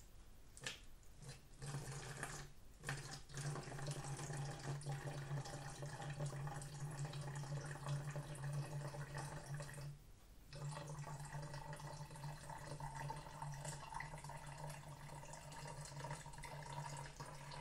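Water poured from a glass measuring jug into a clear plastic bottle, a steady pouring stream that stops briefly about ten seconds in and then resumes.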